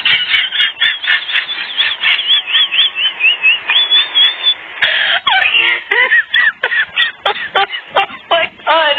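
Puppies yelping and squealing as they play-fight: rapid, high, repeated squeals at first, then from about five seconds in, lower yelps that slide up and down in pitch.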